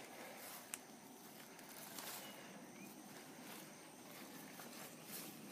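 Footsteps through overgrown grass and brush on a trail, with faint rustling of vegetation. A single sharp click about three-quarters of a second in.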